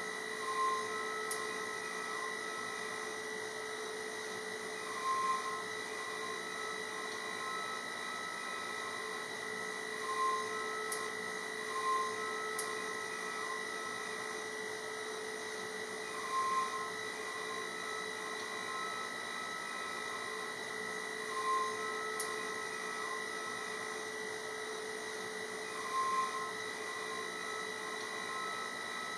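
DATRON M8Cube CNC mill's high-speed spindle whining steadily as a foam-cutting end mill cuts pockets in polyurethane foam. Short, louder pitched swells come every few seconds.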